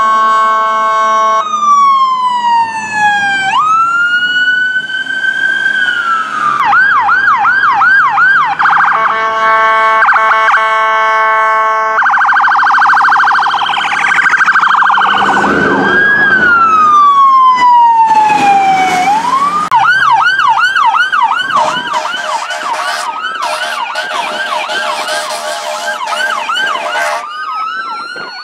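Emergency vehicle sirens switching between a slow rising and falling wail and a fast yelp, broken twice by long steady horn blasts.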